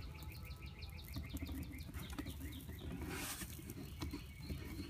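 A bird singing a rapid string of short, falling chirps, about five a second, in two runs, over a low wind rumble. A brief hiss comes a little after three seconds in.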